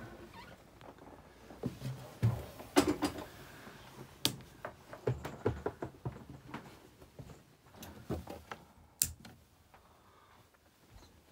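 A run of knocks and clicks from a narrowboat's steel cabin doors and sliding bolt being opened and shut, heaviest about two seconds in, with one sharp click near the end.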